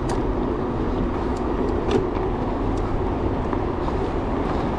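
Riding noise from a Decathlon Stilus electric mountain bike rolling along a trail: steady wind and tyre rumble, with a few sharp clicks and rattles from the bike over bumps.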